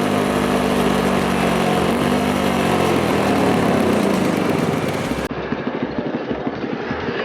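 Beta RR 125 motorcycle engine running at fairly steady revs, the revs dropping and the note turning uneven after about three seconds. The sound changes abruptly about five seconds in, as the engine runs on at lower revs.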